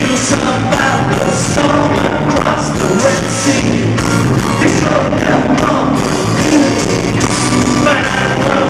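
Live ska band playing, with a male lead vocal over drums and electric guitar.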